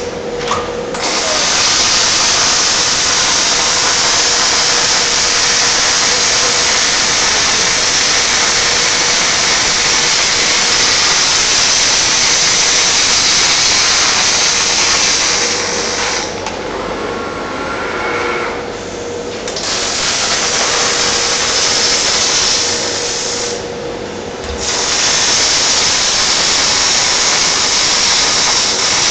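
Robotic MIG welding arc: a Panasonic welding robot's wire-fed torch laying a weld on steel, a loud, continuous crackling hiss with spatter. The arc cuts out briefly three or four times, with a faint steady hum underneath.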